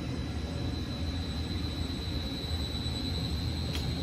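Air handler's belt-driven centrifugal blower and electric motor running steadily on newly fitted pulleys and B-section V-belts: a steady low rush with a thin high whine, running smooth. A faint click near the end.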